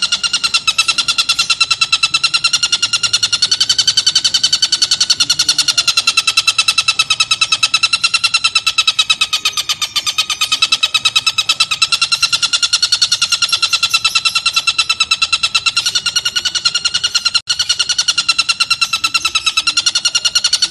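Oriental dollarbird (tengkek buto) calling: an unbroken, fast chatter of repeated notes on one steady pitch, with a momentary break about three-quarters of the way through.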